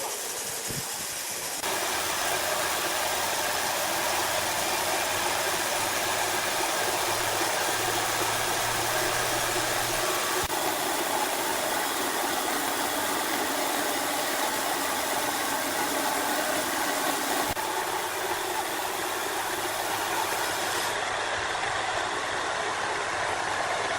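Engine-driven wood saw running steadily, a dense rushing noise over a low engine hum, with sudden shifts in the sound about 2, 10, 17 and 21 seconds in.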